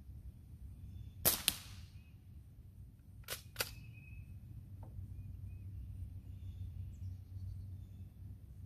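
A shot from a Crosman 622 CO2-powered .22 pump-action pellet rifle: two sharp cracks a fraction of a second apart about a second in. About two seconds later come two quieter clacks, the pump action being worked to chamber the next pellet from the rotary clip.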